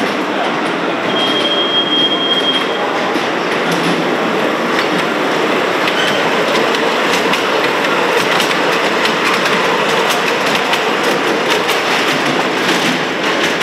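Large-scale model train coaches rolling along the track, wheels clicking over the rail joints, the clicking thickest near the end.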